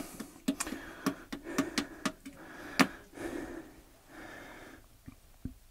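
Light plastic clicks and taps from handling the push-button power-cable connectors on a Pylontech lithium battery stack, about eight of them over the first three seconds, the sharpest near the end of that run. Then soft breathing and a couple of dull taps near the end.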